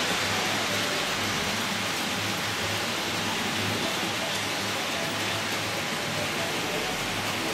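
Model electric locomotive pulling a train of coaches along model railway track: a steady rushing noise of wheels on rails with a low motor hum.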